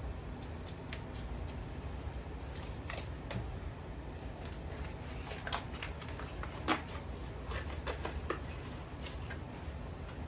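Gravy-mix packets being opened and emptied into a pot: scattered light crinkles and clicks, with one louder click about two-thirds of the way through, over a steady low hum.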